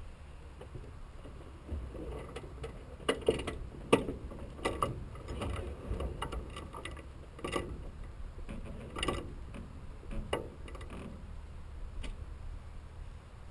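Irregular mechanical clicks and clunks, about a dozen over several seconds, from handling inside the cockpit of a parked Stampe SV.4 biplane with its engine not yet running.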